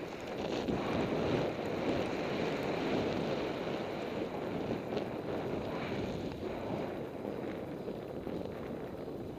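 Steady rush of wind over a body-mounted camera's microphone while riding fast downhill, mixed with the hiss of snow sliding under the rider. It eases a little near the end.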